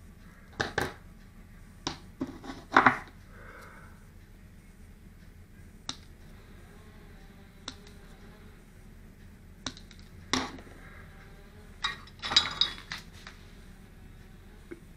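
Small metal hand tools, needle-nose pliers and a soldering iron, handled and set down on a workbench: scattered short clicks and clinks, the loudest cluster about three seconds in and another around ten to thirteen seconds.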